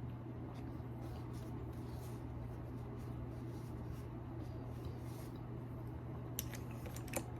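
Quiet room tone with a steady low hum, faint rubbing, and a few small sharp clicks near the end.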